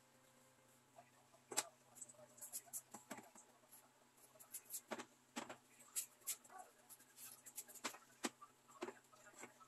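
Tin cans being set on and shifted along a store shelf: light, irregular clicks and taps, starting about a second and a half in.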